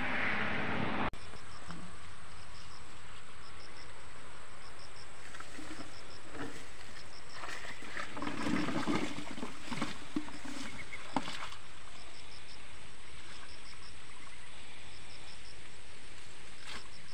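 Rustling and knocking as a bamboo fish trap is handled in tall grass, mostly in the middle, over a steady hiss and a high chirp repeating in groups of three or four about once a second. A louder rushing noise at the start cuts off abruptly about a second in.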